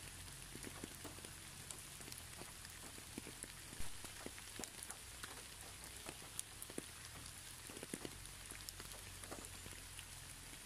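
Rain falling on garden plants: a faint, steady hiss with scattered taps of single drops close by, one louder tap about four seconds in.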